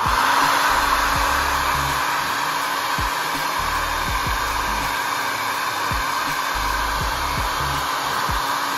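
Handheld hair dryer running steadily: a constant rush of blown air over a low motor hum, aimed at slicked-down edges at the hairline.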